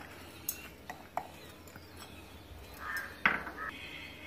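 Light clicks of a small glass dish tapping against a stainless-steel mixer-grinder jar as spices are tipped in, with one sharper knock about three seconds in.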